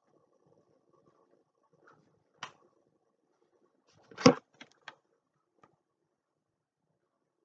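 A single click, then a sharp knock about four seconds in followed by a few lighter clicks: a laminated calendar card being picked up and handled.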